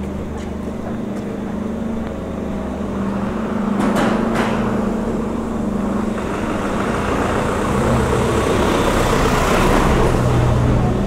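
A motor vehicle's engine running close by, with a steady low hum, and its road noise swelling to a peak about nine to ten seconds in as it passes. Two sharp clicks about four seconds in.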